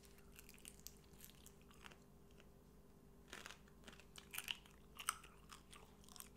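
Faint chewing of crispy air-fried chicken feet, bones still in: scattered crunches that come more often and louder from about halfway in.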